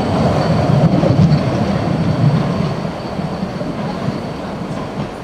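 Narrow-gauge train's coaches running on the rails past and away, a low rumble of wheels on track that fades steadily as the train moves off.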